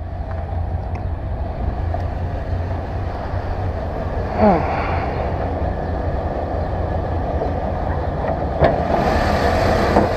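1989 Chevrolet C/K 1500's 5.7-litre V8 idling steadily and smoothly. There is a brief falling squeak about four seconds in and a sharp click near the end, after which the engine sounds brighter and a little louder, heard with the hood up.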